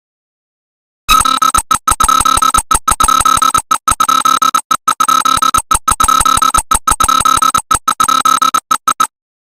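Loud, harsh electronic emergency alert tone held at one pitch, with fainter tones above and below, chopped by many brief dropouts. It starts about a second in and cuts off abruptly shortly before the end.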